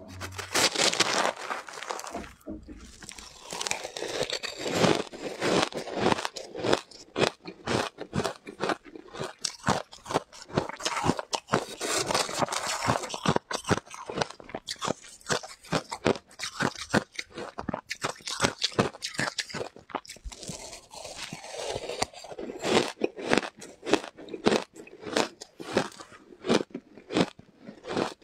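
Mouth crunching and chewing shaved ice coated in matcha powder: a dense, continuous run of sharp crunches, picked up close by a lapel microphone.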